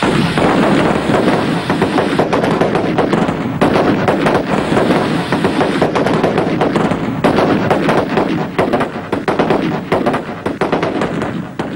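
Film-soundtrack gunfire: dense, rapid shots crackling over one another, fading out near the end.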